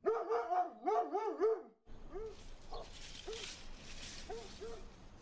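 A dog barking: a quick run of loud, yapping barks, then after a short break single fainter barks every second or so over a low steady background hum.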